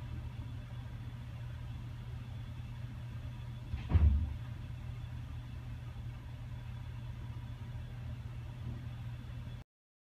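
Steady low hum of cath lab equipment, with one short, loud thump about four seconds in. The sound cuts off abruptly near the end.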